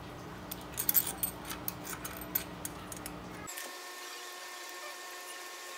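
Light metal clicks and ticks as a long 6x100 bolt is fitted into the timing gear cover of a Honda Wave S 125 engine by hand. The clicks stop about three and a half seconds in, leaving only a faint steady hum.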